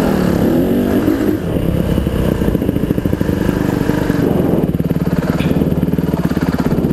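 Honda CRF150R dirt bike's four-stroke single-cylinder engine running on the trail, picked up by a helmet-mounted microphone. Its pitch shifts with the throttle in the first second or so, then holds steady.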